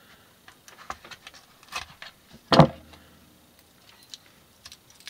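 Scattered light clicks and rattles from handling a small loose part and its packaging on a workbench, with one louder knock about two and a half seconds in.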